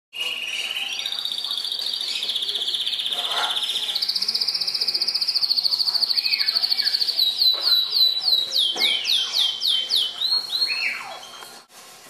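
Bronze red factor canary singing: long rapid trills that step up in pitch twice, then a run of quick down-slurred notes, about three a second, until the song stops shortly before the end.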